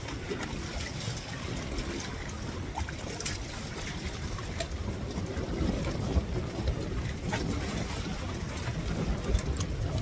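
Wind rumbling on the microphone over choppy water lapping against a bamboo raft, with a few faint clicks.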